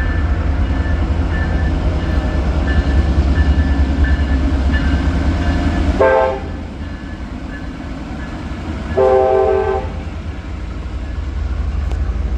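EMD GP38-2 diesel locomotive passing close by, its 16-cylinder two-stroke engine rumbling under a faint electronic bell ringing. About six seconds in the air horn gives a short blast, and a longer blast follows about three seconds later.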